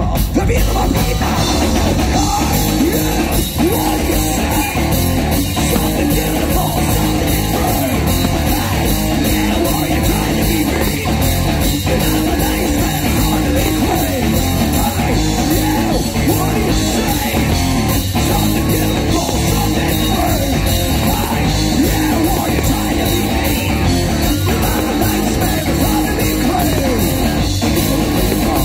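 Live rock band playing loudly: electric guitars, bass and drum kit with a singer's vocals over a steady beat.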